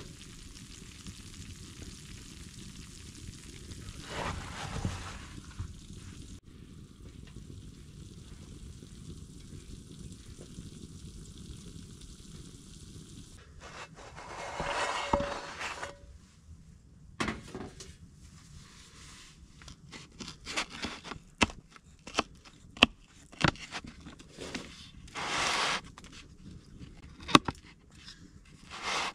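Pizza sizzling in a cast iron skillet set under a fire. Through the second half come many sharp clicks and knocks, with a few louder swells of noise.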